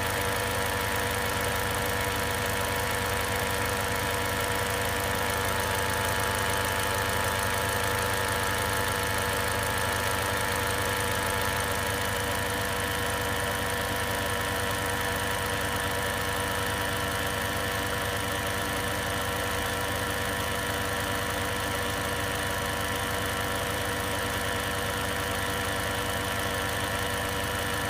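Lexus IS200t's 2.0-litre turbocharged four-cylinder idling steadily, with an abnormal steady, many-toned noise from the engine bay that the owner puts down to a faulty vacuum control valve.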